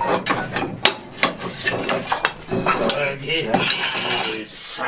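Wooden pieces and tools clattering and knocking as they are handled on a workbench: a quick run of sharp clicks, knocks and clinks, with a stretch of scraping a little after three seconds in.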